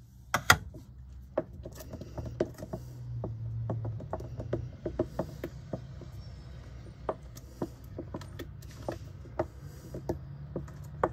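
Wooden spoon stirring a thickening creamy pie filling in a stainless steel mixing bowl, knocking and clicking against the metal sides at an irregular pace, with two sharper knocks about half a second in.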